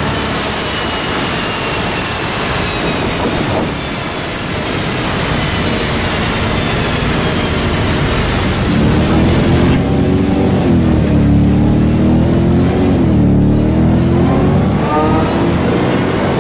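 Dodge Challenger SRT Hellcat's supercharged 6.2-litre Hemi V8 running on a chassis dyno, its rear wheels driving the rollers. A high whine falls in pitch over the first few seconds. From about halfway the engine's low note grows louder, wavers, and begins to rise near the end as the car accelerates.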